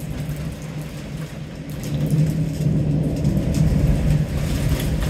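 Thunderstorm ambience: a steady low rumble with a noisy wash, growing louder about two seconds in.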